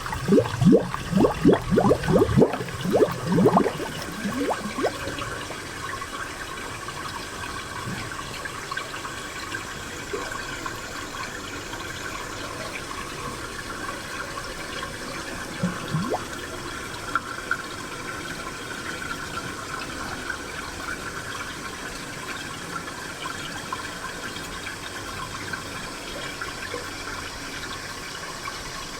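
Spring water trickling steadily, with a quick run of bubbling plops in the first few seconds and a single plop about sixteen seconds in.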